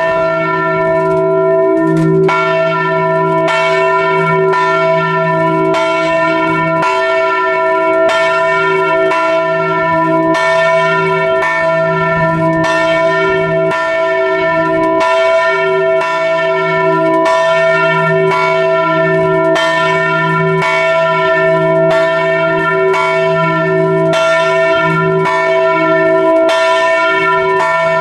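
A large bronze church bell swinging full circle in the belfry, heard close up, its clapper striking about once a second so that each stroke rings into the last.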